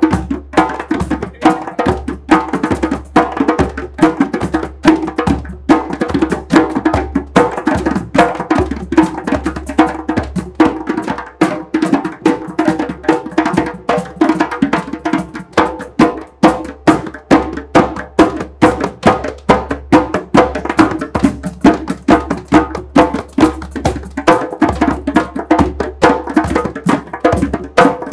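Several people playing percussion together: drums struck over and over in a steady, quick rhythm.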